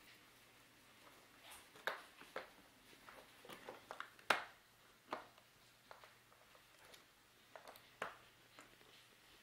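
Plastic magnetic stamps of a toy magnetic sketch pad tapping and clicking on its drawing board as they are pressed on and picked up. Scattered light taps, the loudest about four seconds in.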